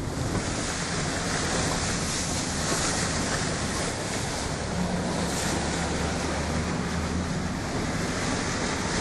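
Truck driving through slush and water, with a steady rush of spray and wind on the microphone. The engine hums underneath, most clearly a little past the middle.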